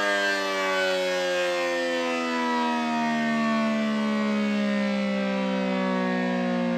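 ACA P-10 outdoor warning siren winding down, its steady wail falling slowly in pitch. Its motor has a bad run winding, so it runs a little slow.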